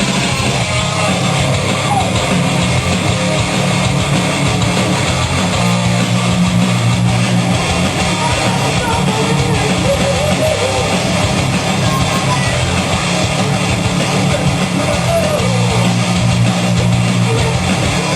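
Heavy metal music, led by distorted electric guitar playing a riff, loud and steady throughout.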